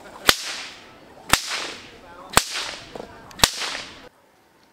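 A long whip lashing spinning tops, cracking sharply four times about once a second, each crack followed by a short echo. The sound cuts off suddenly a little after four seconds in.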